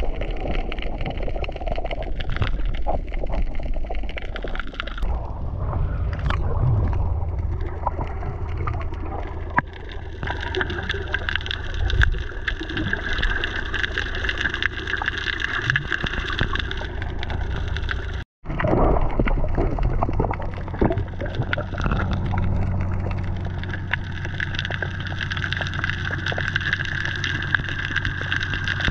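Underwater sound picked up by the camera: a steady low hum of boat engines carrying through the water, with water swishing and gurgling over it. The sound cuts out briefly about two-thirds of the way through.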